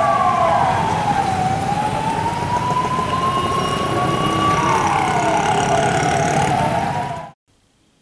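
Police van siren wailing, its pitch rising slowly and then dropping back, about twice, over street noise. It cuts off suddenly near the end.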